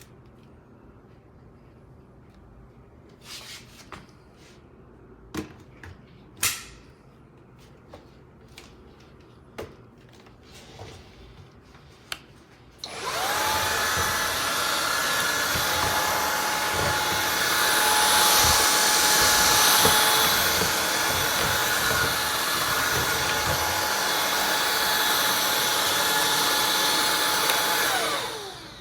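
A few clicks and knocks of handling, then a Shark cordless stick vacuum's motor starts about halfway through. It runs steadily with a high whine for about fifteen seconds, then winds down with falling pitch just before the end.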